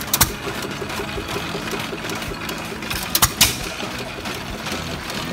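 Small motor-driven water pump running with a fast, steady mechanical clatter, with a few sharp knocks just after the start and about three seconds in.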